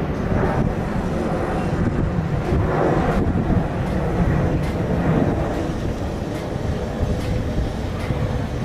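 Distant Boeing 737-800's CFM56-7B turbofan engines at takeoff thrust: a steady low rumble as the airliner rolls down the runway and lifts off.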